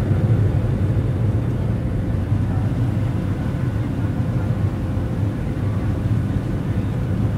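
Jet engines of a Southwest Airlines Boeing 737 at takeoff power, heard inside the cabin over the wing as the plane lifts off and climbs: a loud, steady low rumble with a faint steady hum above it.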